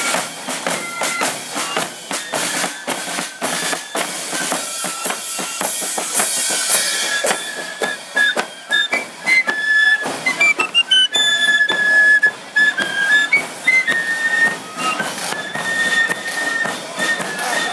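Marching flute band playing a tune, the flutes carrying a high melody over a steady beat of drums.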